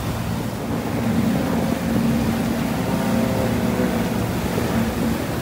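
Steady low engine drone with a held hum, over the wash of water and wind.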